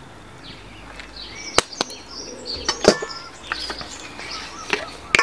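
Scattered sharp clicks and taps as a shaker jar of mixed spice is shaken over a glass mixing bowl and set back down, with a few faint bird chirps behind.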